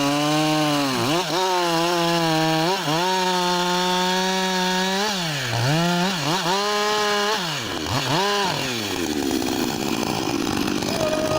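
Chainsaw engine running at high revs, its pitch dipping and recovering several times; in the last few seconds the steady note gives way to a rougher, noisier sound.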